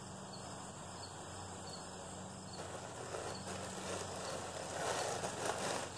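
A riveted mail hauberk being handled and pulled from its plastic bag: rustling plastic and clinking rings, starting about two and a half seconds in and getting louder toward the end.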